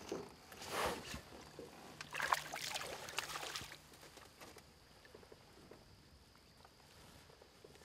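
Water splashing as a small hooked bass thrashes at the surface beside the boat, in a short burst about a second in and a longer one from about two seconds to nearly four.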